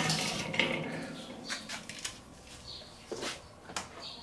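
Weber charcoal kettle grill's steel lid being lifted open, followed by a few light metallic clicks and knocks.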